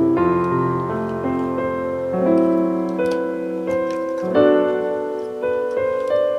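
Background piano music: a gentle melody of sustained notes and chords.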